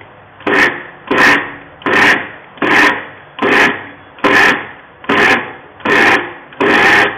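Electric mixer grinder pulsed on and off in about nine short bursts, a little over one a second, grinding khoya (mawa) into crumbs in a small steel jar.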